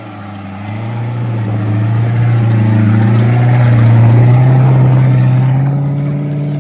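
Off-road race car's engine droning past at a steady pitch that creeps slightly upward, growing louder to a peak about four seconds in, then fading as it goes by.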